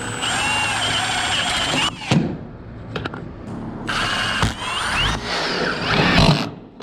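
Power screwdriver driving screws into the metal roofing in two runs of about two seconds each, the second starting about four seconds in.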